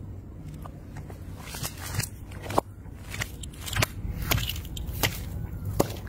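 Plastic bottles cracking and popping as a car tyre rolls over and flattens them, a run of sharp snaps and crunches several times a second, with liquid squirting out.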